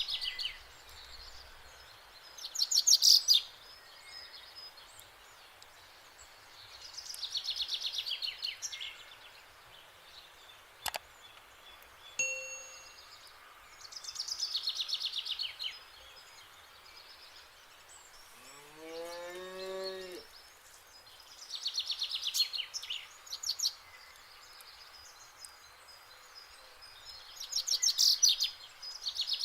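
A cow mooing once, a single low call rising in pitch, about two-thirds of the way in. Over it, a bird repeatedly sings short, fast, high trills every five seconds or so, and these trills are the loudest sounds.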